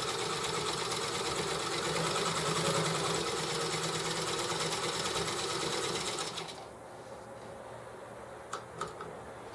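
Sewing machine running steadily, stitching a hem through heavy mesh sling-chair fabric, then stopping about six and a half seconds in. Two light clicks follow near the end.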